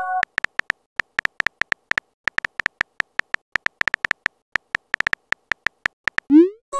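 Phone keyboard typing clicks: rapid, irregular short ticks, several a second, as a text message is typed out. A short chime from the previous message being sent fades about a quarter second in, and a quick rising swoop sounds near the end.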